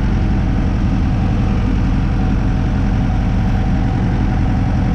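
Renault 651 tractor engine running steadily, heard from inside the cab as the tractor pulls a roller across a field.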